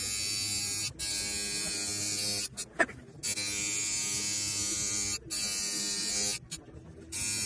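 Tattoo machine buzzing steadily in stretches of one to three seconds, stopping briefly between passes of the needle. A short, louder sound comes a little before the middle.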